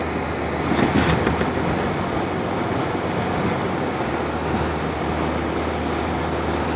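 Steady engine and tyre noise heard from inside a moving car's cabin on wet, slushy road, with a low constant hum. A few brief knocks about a second in.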